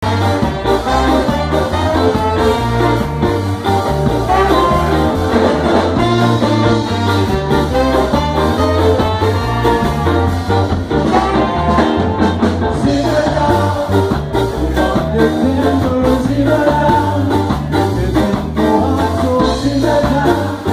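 Live ska band playing, a horn section of saxophones, trumpets and trombone over keyboard and a steady, even beat.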